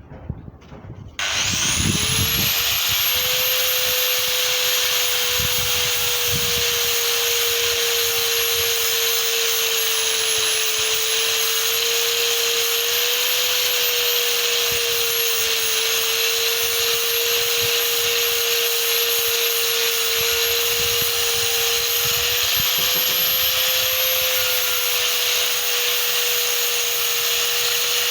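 Angle grinder switched on about a second in, spinning up to speed within a second, then running steadily with a high whine and small dips in pitch as it is worked into a hardwood plank.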